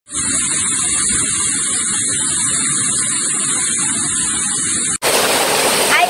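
A loud, steady static-like hiss for about five seconds that cuts off abruptly. It is followed by the even rushing of a waterfall.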